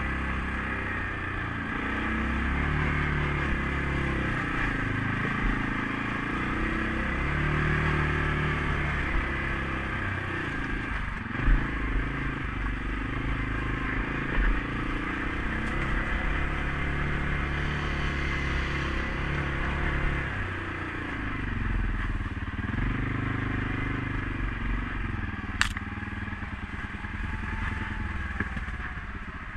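CFMOTO CForce 500S ATV's single-cylinder engine running while riding, its pitch rising and falling with the throttle. Two short thumps come near the middle and a sharp click near the end.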